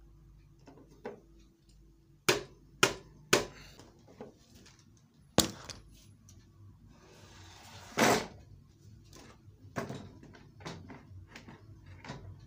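Gentle hammer taps seating a sewing machine's wheel onto its shaft so it grips and won't slip: a handful of sharp, irregularly spaced knocks with quieter clicks between.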